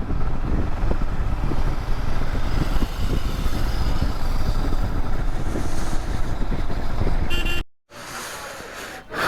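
Motorcycle riding noise: steady wind rush and engine heard through a rider-mounted camera mic, loud and heavy in the low end. It cuts off abruptly near the end, followed by much quieter sound.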